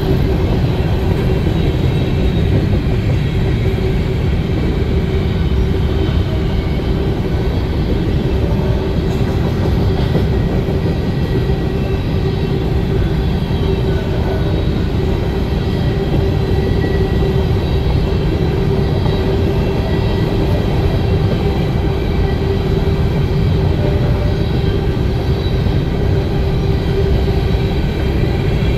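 Freight train of Norfolk Southern covered hopper cars rolling past: a loud, steady rumble of wheels on rail, with a continuous tone held over it.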